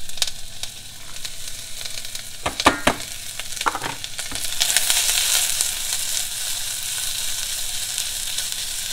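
Sliced onion frying in a stainless steel saucepan, a steady sizzle that grows louder about halfway through. A few sharp knocks sound in the middle.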